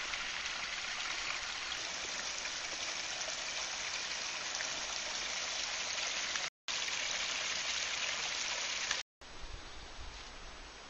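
Small rocky mountain stream rushing and trickling over stones, a steady watery hiss, with a short break about six and a half seconds in. After a cut about nine seconds in the water drops away, leaving a quieter background with low rumbles.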